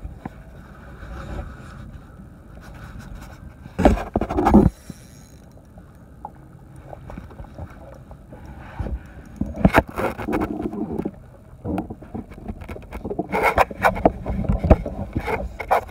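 Spinning reel being cranked and handled while fighting a hooked striped bass, with scraping and knocking from hands and gear. There is a loud burst of handling noise about four seconds in, and more frequent scrapes and clicks from about ten seconds on.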